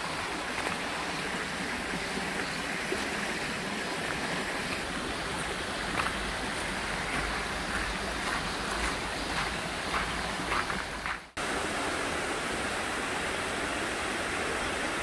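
Mountain stream running, a steady rush of water, broken by a brief drop-out about eleven seconds in.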